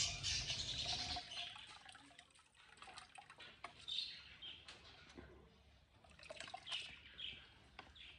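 Soaked split moong dal being rubbed and rinsed by hand in a steel sieve dipped in a tub of water: faint sloshing, trickling and small drips as the husks are washed off.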